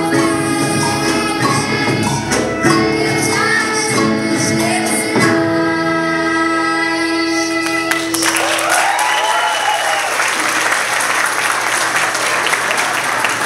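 Children's choir singing with acoustic guitar and band, ending on long held notes; about eight seconds in the audience breaks into applause and cheering.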